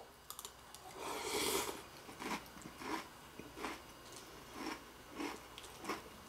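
Mouthful of Cap'n Crunch cereal in milk being chewed: a longer crunching bite about a second in, then short crisp crunches at a steady pace, a little under two a second.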